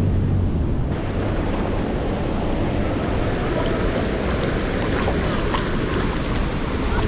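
Steady rush of flowing water mixed with wind buffeting the microphone.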